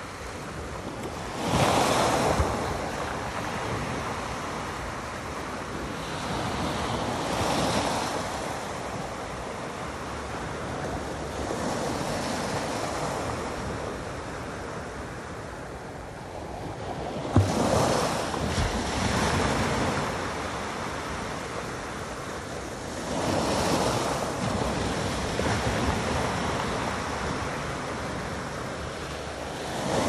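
Small waves breaking and washing up a pebble beach, swelling and fading in about six surges roughly five seconds apart. One sharp knock sounds a little past halfway, just as one of the louder waves comes in.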